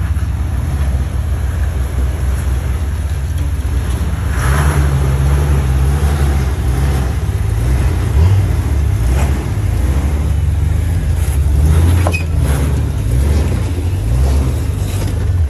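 A Jeep's engine running under load as it drives, a steady low drone that rises and falls a little, with scattered knocks and rattles.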